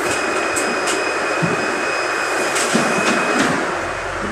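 NefAZ 5299 city bus's door-closing warning: a steady high electronic tone held about three and a half seconds, with a few clicks and knocks as the passenger doors fold shut. Underneath is a steady hiss that falls away once the doors are closed.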